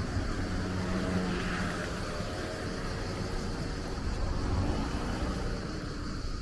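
A car's engine running, a steady low rumble with a faint hum.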